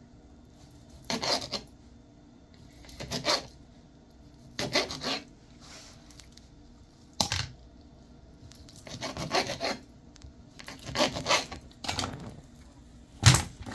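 Kitchen knife slicing down through a block of firm cheese onto a plastic cutting board: about seven separate cuts, a second or two apart, the loudest near the end.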